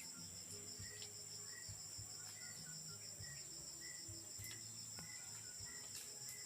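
Faint, steady, high-pitched insect trilling that pulses rapidly, with faint scattered short tones lower down.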